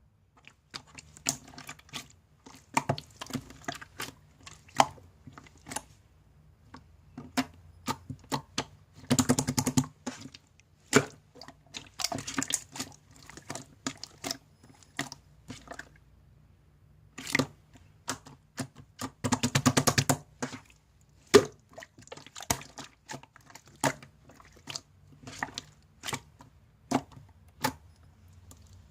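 Glitter slime being squeezed and pressed by hand, giving irregular sticky pops and clicks, with two short runs of rapid crackling popping, about nine and nineteen seconds in.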